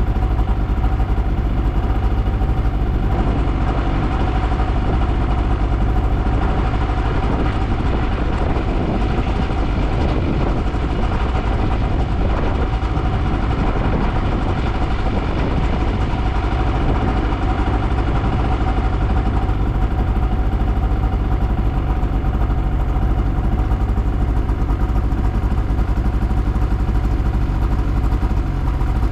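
A small engine running steadily at an even speed, with no revving or stopping.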